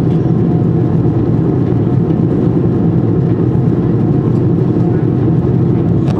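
Steady cabin noise of a passenger plane in flight: engine and airflow drone, loud and even, strongest in the low range.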